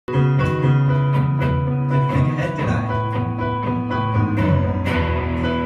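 Guitar music playing, with chords and bass notes changing every second or so.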